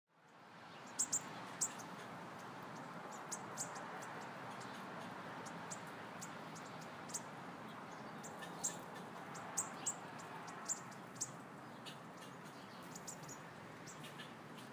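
A paintbrush working acrylic paint onto thin waxed deli paper: faint, irregular crisp ticks and crackles from the brush and the paper, over a steady low room hiss.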